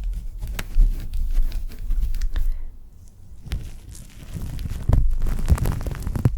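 Wet ASMR mouth sounds made right at the microphone: quick clicks and smacks over a low rumble, in two runs with a short pause near the middle.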